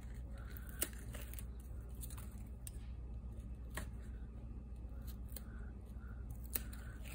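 Faint handling of paper pieces being laid and pressed down: soft rustles and three sharp light taps, one just under a second in, one about halfway and one near the end, over a steady low hum.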